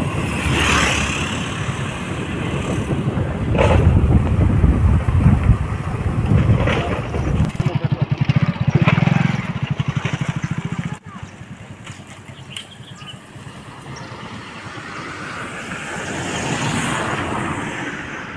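Motor scooter engine passing on a road, with wind noise on the microphone and a fast even pulsing about eight seconds in. About eleven seconds in the sound drops abruptly to a quieter outdoor hiss.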